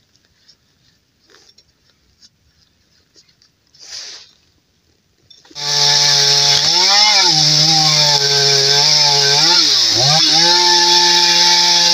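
A few faint clicks as a gas chainsaw is readied by hand, then about five seconds in the two-stroke chainsaw comes in loud at high revs and cuts into a birch trunk, its engine note sagging under load and recovering twice.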